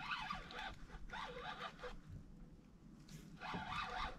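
Fishing reel being cranked in three bursts of about a second each, with pauses between, as a hooked catfish is reeled in.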